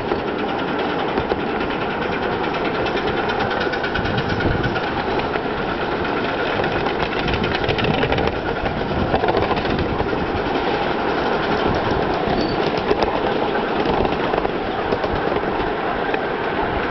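1961 English-built Britannia ride-on miniature steam locomotive running along the track, with a rapid, even beat and the clatter of the wheels on the rails.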